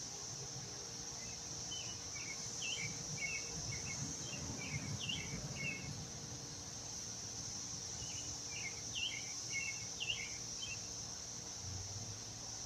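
A bird sings two phrases of quick chirping notes, a few seconds apart, over a steady high insect drone.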